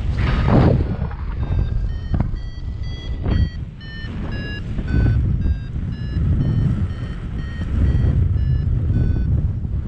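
Paragliding variometer beeping in short beeps of shifting pitch, about three a second, the audio signal that the glider is climbing in lift. Wind buffets the microphone throughout, with a strong gust about half a second in.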